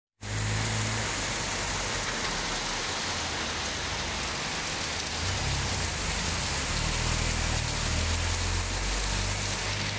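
Heavy rain falling on a flooded street, a steady hiss, with the low hum of a pickup truck's engine as it drives through the floodwater, strongest in the second half.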